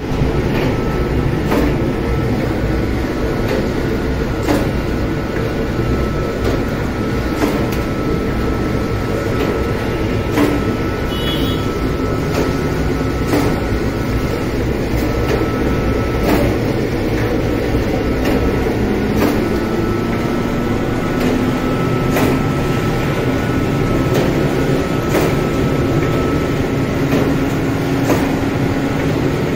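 Bakery dough machines running (spiral mixer, chain-driven dough divider and dough sheeter): a steady mechanical rumble with a faint steady whine and scattered clicks and knocks.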